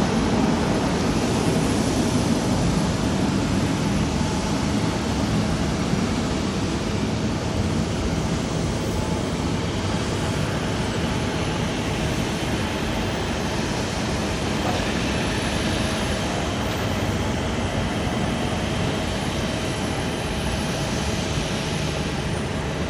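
Jet airliner engine noise, a steady rush with a faint whine, slowly fading.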